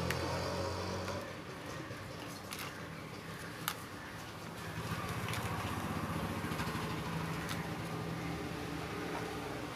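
Small plastic toy parts handled by hand, giving a few sharp clicks over a steady low hum. The hum drops about a second in and comes back louder about five seconds in.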